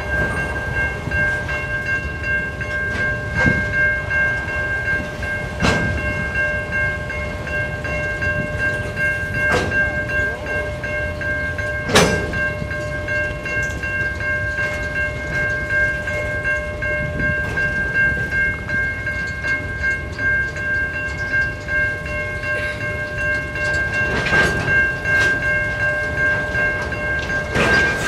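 Freight train's boxcars rolling past: a steady rumble of wheels on rails, with a steady high-pitched ring held throughout. Occasional sharp clanks come through, the loudest about twelve seconds in.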